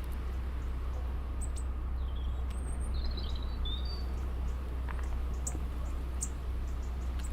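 Small birds giving a few short, high chirps between about one and a half and four seconds in, with a few sharp ticks later on, over a steady low rumble.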